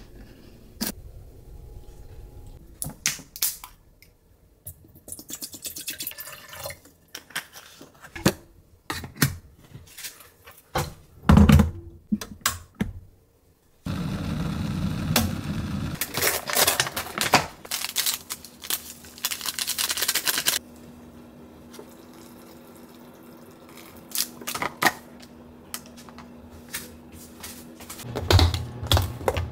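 Handling and unwrapping of a cup ramyeon: a string of clicks, taps and rustles. Then, about halfway, an electric kettle heating water to the boil makes a dense rumbling, bubbling noise for about six seconds. Quieter clicks and clatter follow.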